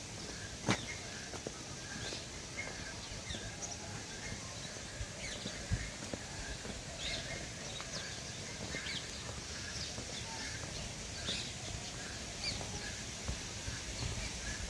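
Birds chirping and calling, short high chirps scattered throughout over a steady background hiss. A single sharp click comes just under a second in.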